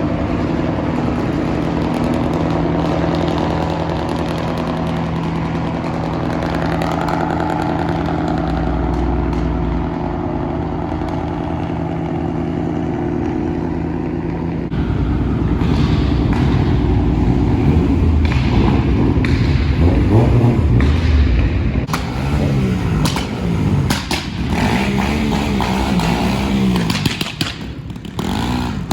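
Motor vehicle engines running: a steady drone for about the first half, then a louder stretch from about halfway in which the engine pitch rises and falls with revving, with scattered knocks near the end.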